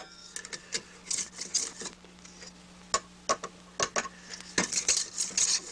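Small hand plane shaving a split-cane rod strip in a trimming block: a run of short scraping strokes with sharp clicks of the tool between them.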